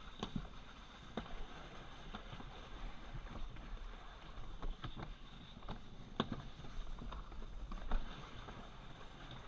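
Plastic alpine slide sled running down a concrete track, with a steady scraping rumble and irregular knocks and clatters as it rides over the run.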